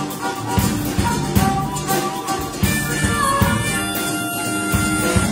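Live band music: a harmonica played through a vocal microphone, holding long notes over strummed acoustic guitar and a drum kit keeping a steady beat. No singing.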